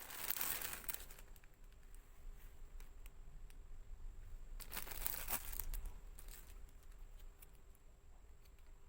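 Packaging being handled during an unboxing: crinkling and rustling, in two louder bursts, one at the start and one about five seconds in, with lighter handling noise between.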